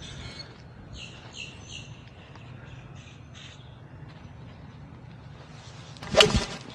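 Birds call a few times with short repeated notes over quiet outdoor background. About six seconds in, a golf iron strikes the ball off the tee: one sharp, loud click with a brief ring, the loudest sound.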